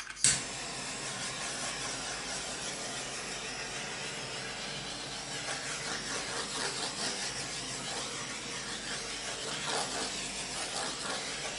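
Handheld butane torch flame hissing steadily as it is passed over wet acrylic paint to pop air bubbles, with a sharp click at the very start.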